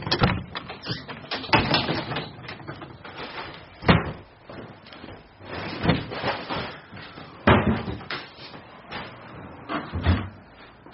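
Irregular knocks and clatters of kitchen cupboard doors and food items being handled as someone rummages for food, with sharper bangs about four and seven and a half seconds in.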